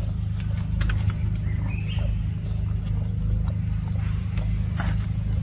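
Steady low hum of a motor running nearby, with scattered light clicks and a short rising squeak from a baby monkey about two seconds in.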